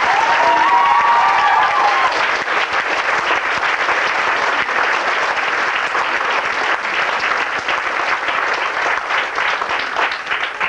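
Audience applauding: dense, steady clapping from many hands that holds at an even level throughout.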